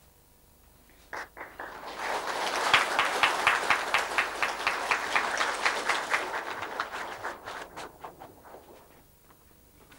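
Audience applauding: a few first claps about a second in, quickly swelling into full applause, which then thins out and dies away near the end.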